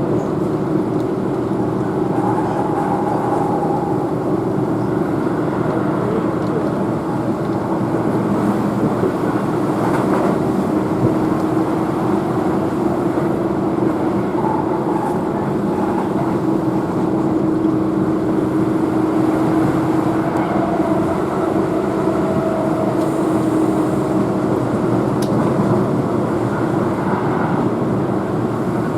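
Keihan electric train running, heard from inside the carriage: a steady rumble of wheels and running gear with a few faint hums that come and go.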